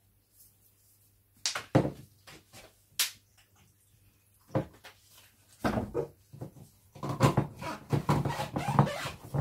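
Broccoli florets being packed into a plastic or glass blender cup by hand: scattered knocks and clinks of the florets and the cup. Near the end comes a busier run of clatter.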